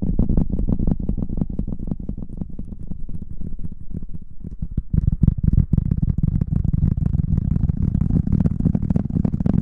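Close, muffled rubbing and rustling against an ASMR microphone: a dense low rumble full of small crackles, growing fuller about five seconds in.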